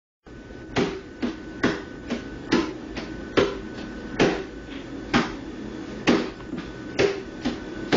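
A small child drumming on the padded seat of a chair: a steady beat of sharp strikes, a loud one a little under once a second, with softer hits between.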